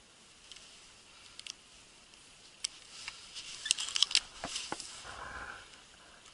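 Footsteps crunching through dry, frosty grass and reeds: scattered crackles and clicks, thickest about four seconds in.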